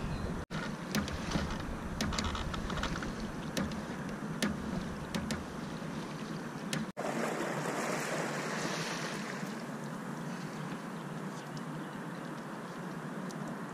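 Open-air ambience on a sailboat's deck: a steady rush of wind and harbour water, with a few light knocks and clicks in the first half.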